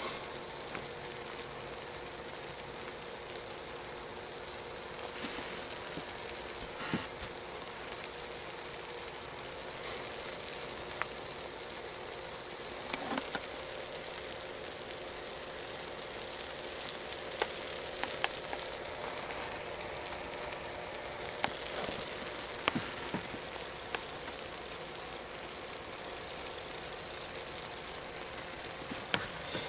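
Eggs and tuna frying in a pan: a steady sizzling hiss with scattered small pops and crackles.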